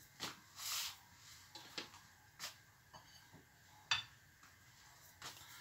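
Covered pot of broth heating on the stove, not yet boiling: quiet, with a few faint clicks and brief hisses, the sharpest click about four seconds in.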